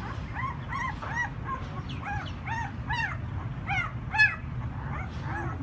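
Young puppies whining and yelping: a quick scatter of short, high squeaks that rise and fall in pitch, about a dozen in all.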